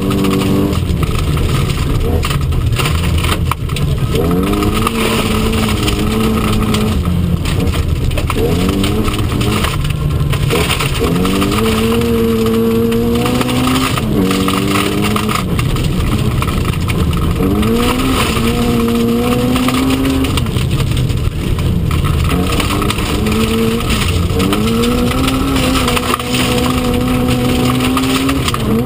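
Historic Mk1 Mini Cooper S's A-series four-cylinder engine at racing revs, heard from inside the cabin, the revs climbing and dropping back again and again through gear changes and lifts. Under it runs a steady rush of tyre and gravel noise from the loose stage surface.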